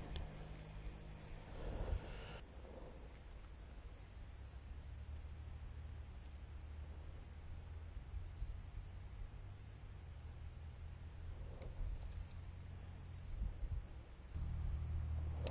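Insects trilling in a steady, high-pitched drone, over a low rumble on the microphone.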